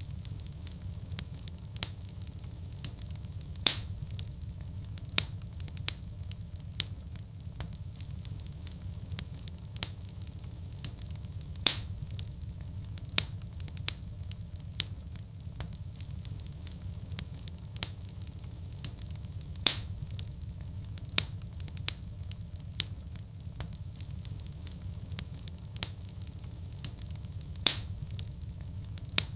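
Wood fire burning in a fireplace: a steady low rumble with frequent small crackles and sharp pops. The loudest pops come about every eight seconds, in a repeating pattern.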